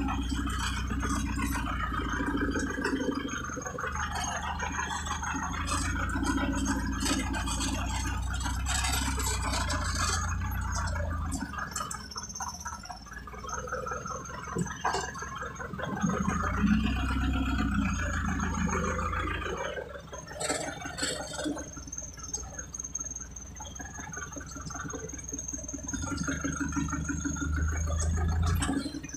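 Truck engine running with a low rumble that swells and eases as it drives slowly over a rutted dirt road, heard from inside the cab, with a few knocks and rattles from the cab as it bounces.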